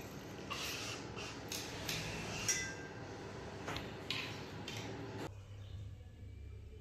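A light machine gun barrel being handled and a cleaning cloth pulled through it: rubbing and scraping with several light metallic clinks, one clink ringing briefly about two and a half seconds in. About five seconds in this gives way to a low steady hum.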